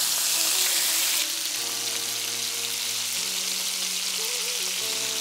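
Chicken thighs sizzling steadily in hot oil in a skillet as they are browned, a little louder in the first second or so.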